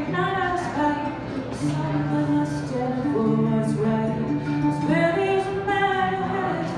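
A woman singing a song into a microphone, accompanying herself on a strummed string instrument, with some notes held for a second or more.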